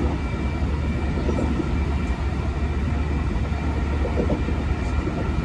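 Running noise heard inside the passenger car of a Hankyu 2300 series electric train travelling at speed: a steady low rumble from the wheels and running gear, with a faint steady high whine over it.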